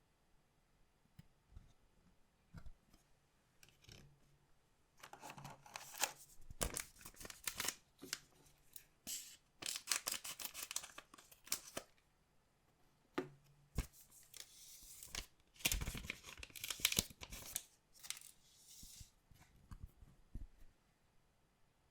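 Packaging of trading-card packs being opened and handled, with crinkling and tearing plus sharp clicks, in two stretches of several seconds each.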